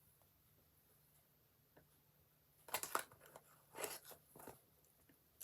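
Mostly quiet, then a few short crackling, crunchy handling noises in the second half, from slime and its plastic containers being handled.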